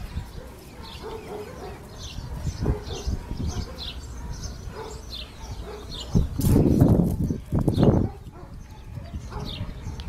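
Small birds chirping again and again in the background. A louder burst of low noise comes in about six seconds in and lasts nearly two seconds.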